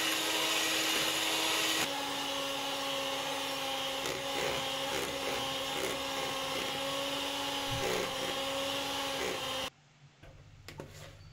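Electric hand mixer whipping milk and powdered whipped-cream mix in a plastic bowl, beating it stiff: a steady motor whine whose pitch drops slightly about two seconds in. It stops abruptly near the end, leaving a few faint clicks.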